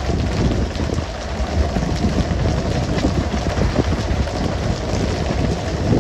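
Steady rush of water spray and splashing sea at the stern of a fishing boat, over the low rumble of the boat's engine.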